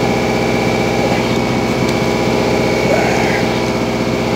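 Small engine running steadily at idle, an even, unchanging hum.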